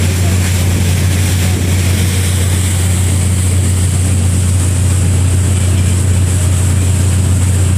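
A ferry's engines running under way, a steady, loud low drone with an even rushing hiss over it.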